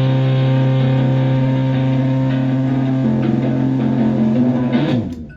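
Stratocaster through a Tone Bender MKII-style fuzz pedal and a Twin Reverb-style amp, a low fuzzed note sustaining with many overtones, beginning to waver after about three seconds, then choked off near the end.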